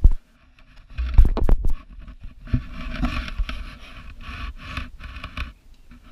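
A stretchy Wubble ball packed with water balloons being squeezed and rubbed by hand, with heavy handling thumps about a second in and then steady scraping and rubbing of its plastic skin.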